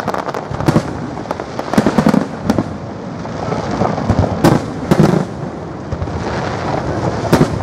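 Fireworks display: shells bursting in a string of sharp bangs every second or two, some in quick pairs, over a continuous noise between them.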